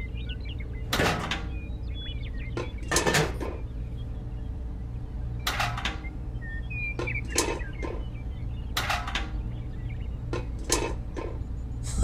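Irregular knocks and clatters of small tool and model parts being handled against a little metal pail and the toy concrete mixer, about a dozen over the span, with a steady low hum underneath.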